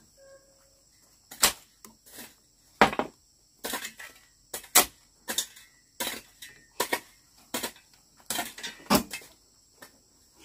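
A steel shovel digging and scooping dry dirt into a wheelbarrow: a string of sharp scrapes and knocks, about two a second, over a faint steady high insect drone.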